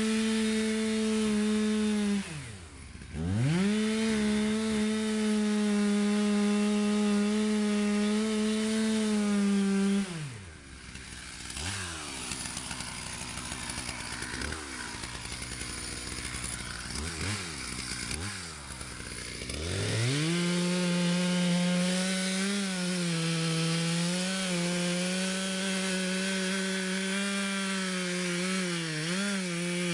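Chainsaw engine running at high revs, dropping off and picking straight back up about two seconds in. From about ten seconds it runs lower and unevenly with several quick revs, then from about twenty seconds it holds high revs again, the pitch slightly lower and wavering as it cuts into the tree trunk.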